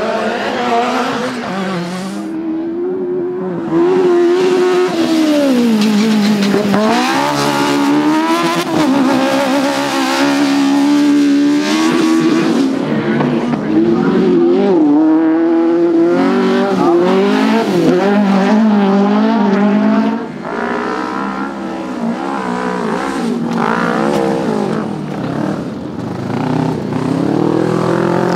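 Racing crosskart engines revving hard, the pitch climbing and dropping again and again with throttle and gear changes as the karts slide through dirt corners.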